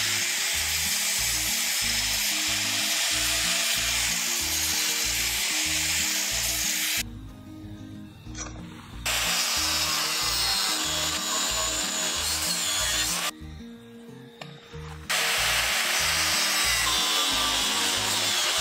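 Angle grinder grinding into a steel bolt clamped in a vise, a steady high grinding hiss in three long stretches with two short breaks, about seven seconds in and about thirteen seconds in. Background music plays underneath.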